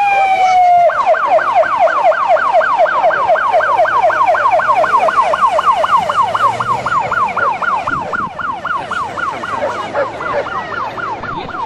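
Police vehicle siren: a falling wail in the first second switches to a fast yelp of rising sweeps, about four a second, which grows a little weaker near the end.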